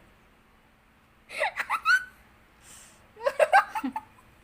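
Two short bursts of a person's gasping, squealing vocal sounds, the first rising in pitch at its end, with a faint breath between them.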